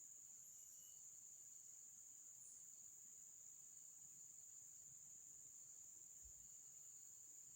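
Faint, steady high-pitched insect chirring, an unbroken shrill drone with no pauses.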